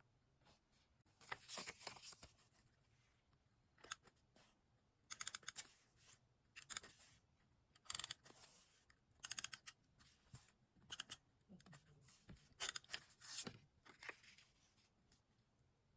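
Scissors cutting paper in short, crisp snips, about every one to two seconds, with quiet between.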